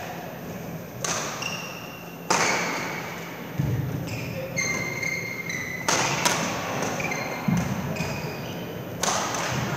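A badminton rally in a reverberant sports hall: sharp cracks of rackets striking the shuttlecock, about one a second, with short high-pitched squeaks of court shoes on the floor and a few dull footfall thuds between the hits.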